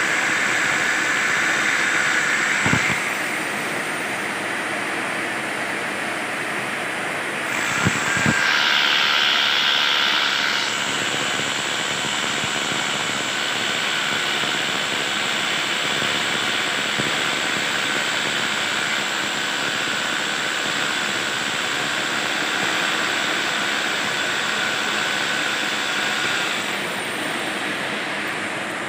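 Electric rotary hammer drill running and drilling into a plastered masonry wall, a steady motor whine under rough hammering noise that shifts in pitch and level as the bit bears on the wall, with a couple of short knocks about 3 and 8 seconds in.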